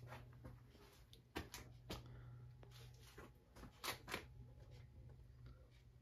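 Quiet workshop room tone: a low steady hum with a scattered handful of soft knocks and clicks, the loudest a pair about four seconds in.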